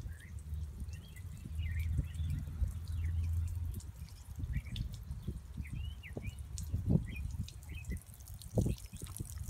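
Water jets from pricked water balloons splashing and dripping onto stone in irregular small ticks and patters. Small birds chirp in the background.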